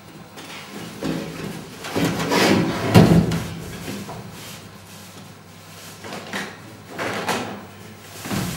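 Rustling swishes of a rolled nylon sleeping bag being handled and lowered onto a wooden table, with a dull thump about three seconds in as it lands. A few shorter rustles follow as it is shifted on the tabletop.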